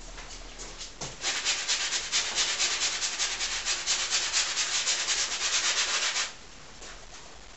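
Paint being scrubbed onto a large stretched canvas in quick back-and-forth strokes. The scrubbing starts about a second in, runs for about five seconds and stops abruptly.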